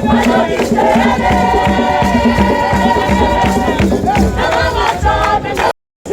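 Background music with singing voices, cutting off abruptly near the end.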